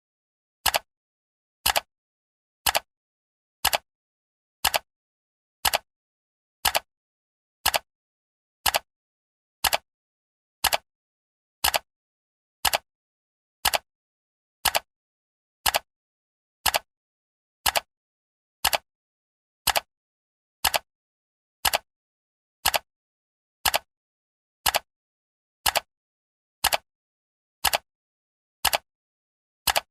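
Countdown timer's clock-style ticking sound: one sharp tick every second, evenly spaced.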